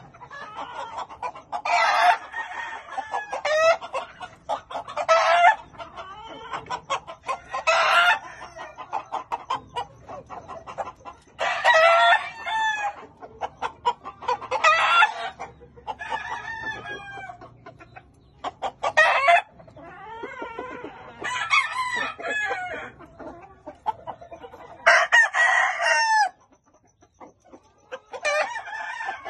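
Chickens: rooster crows, each about a second long, come roughly every three seconds, with clucking between them.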